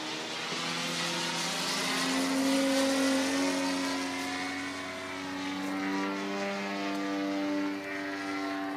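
The DLE 111 twin-cylinder gasoline engine of a 35% scale MX2 RC aerobatic plane, turning a 25x12 three-blade propeller in flight. Its pitch slides up and down as the plane maneuvers, loudest a few seconds in, swelling again near the end, then falling off.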